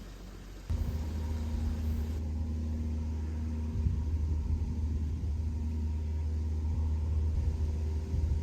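A steady low rumble that starts abruptly about a second in.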